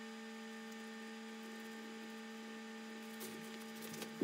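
Steady electrical hum, with a few faint rustles near the end.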